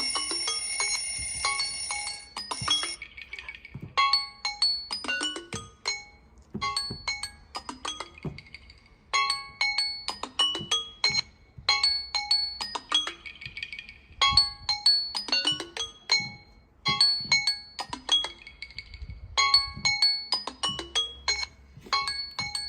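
Smartphone alarm tone: a short phrase of bright, marimba-like struck notes repeated over and over. It follows a denser ringing chime that stops about three seconds in.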